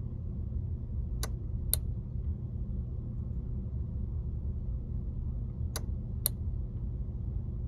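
Two pairs of sharp relay clicks from a delay-timer relay module, each pair half a second apart and the pairs about four and a half seconds apart, over a steady low rumble. The clicks fit the relay pulling in and dropping out as it keys the beacon on its 4.5-second cycle.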